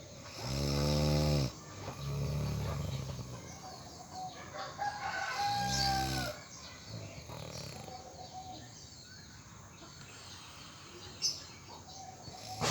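Loud snoring: a long, rattling, pitched snore about half a second in and another about five and a half seconds in, with quieter breathing between. A fainter high held tone runs alongside the second snore.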